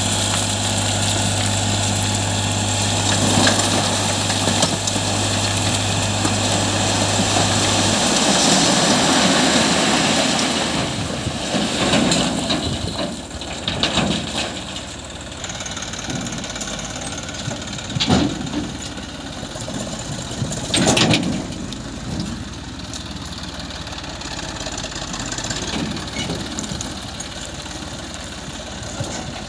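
Eicher 480 tractor's diesel engine running while its tipping trailer dumps a load of rock and soil, which slides out with a long rushing, rattling noise. Later come several sharp knocks over the engine running more quietly as the tractor moves off.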